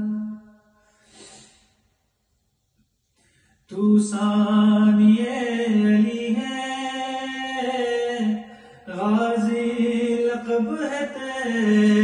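A man's solo voice chanting an Urdu noha, a Shia lament, unaccompanied and in long held notes. The voice stops soon after the start and is silent for about three seconds, then takes up the chant again.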